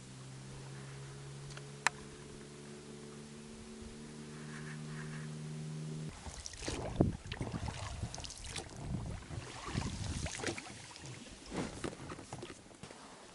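A steady low hum for about six seconds that cuts off suddenly, followed by irregular splashes and knocks of a small boat being handled on the water.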